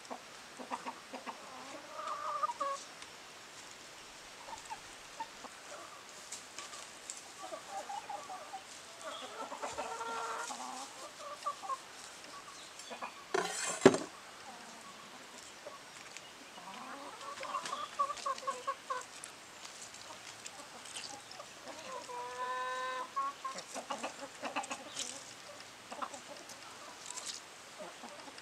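Domestic chickens clucking on and off, in short pitched calls spread through the clip. There is a single sharp knock about halfway through.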